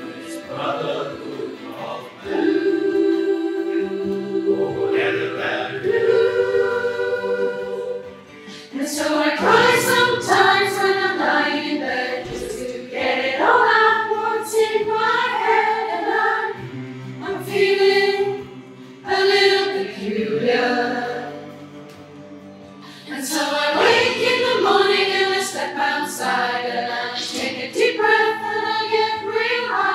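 A choir singing, in phrases with short breaks about eight seconds in and again a little past twenty seconds.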